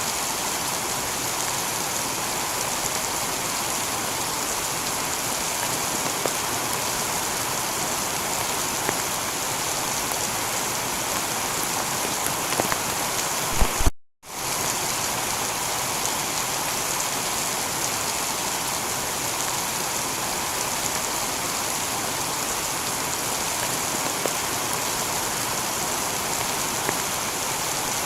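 Steady heavy rain falling on a tiled roof, with a few louder individual drops. About halfway through it cuts out to silence for a moment, then comes straight back.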